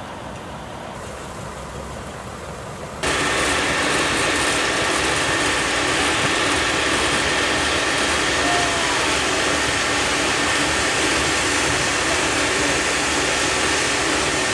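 Outdoor ambience with a low rumble, then, about three seconds in, an abrupt switch to louder, steady industrial machinery noise with a faint steady whine that runs on without change.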